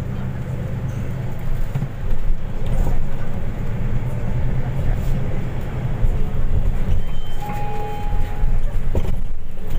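Cabin noise of a Euro VI MAN NL323F diesel bus under way: a steady low engine and drivetrain rumble with road noise, getting a little louder about two seconds in. A short electronic beep sounds for about a second near the end.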